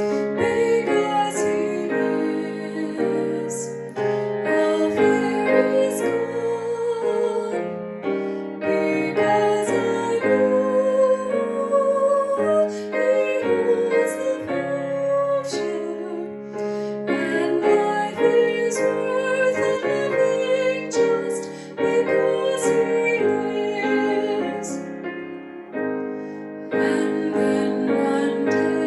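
Piano music in a slow hymn style, with a sustained wavering melody line over the piano chords.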